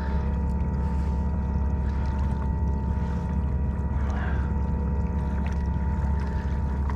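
Bixpy J-2 electric motor pushing a kayak, a steady whine over a constant low hum, with water hissing along the hull.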